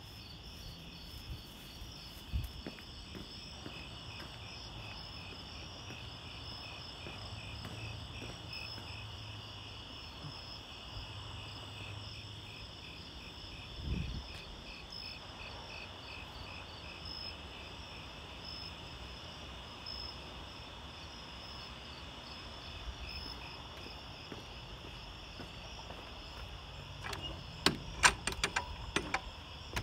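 Night-time insects, crickets or katydids, chirping in a steady chorus of even, rapid pulses at two high pitches. Two dull thumps come about two seconds and fourteen seconds in, and a cluster of sharp clicks near the end is the loudest sound.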